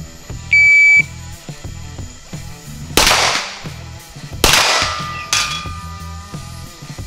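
An electronic shot timer gives one steady start beep about half a second in, then a pistol fires three shots, at about three seconds, about four and a half seconds and just after five seconds, each trailing off in a short echo.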